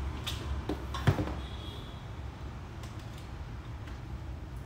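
Light handling clicks and knocks on a metal cut-off saw, the sharpest about a second in, over a low steady hum.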